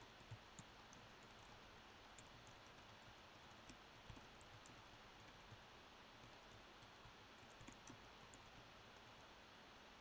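Near silence over a faint steady hiss, with scattered faint clicks of a computer keyboard tapped now and then, in small irregular groups.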